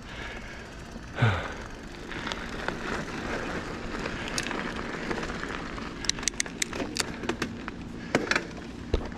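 Mountain bike tyres rolling over loose gravel, a steady crunching hiss, with a run of sharp clicks and ticks from about six seconds in.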